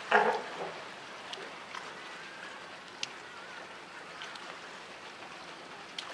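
Steady trickle of running water with a few faint clicks, opened by a short call from a newborn California sea lion pup right at the start.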